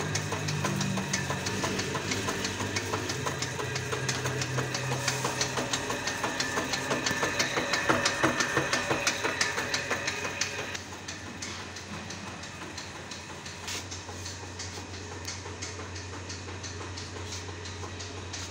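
A machine running with a fast, regular ticking rhythm of about four ticks a second over a low hum, dropping in level about eleven seconds in.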